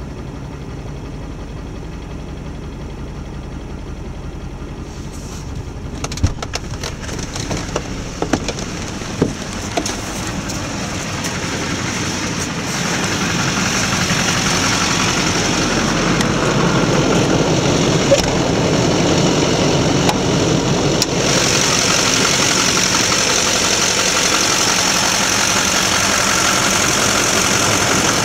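2004.5 Duramax 6.6 L LLY V8 turbodiesel idling, a truck that intermittently idles rough, which the owner wonders may be a bad injector. A few sharp clicks come about six to ten seconds in, and the sound grows louder and hissier from about thirteen seconds on.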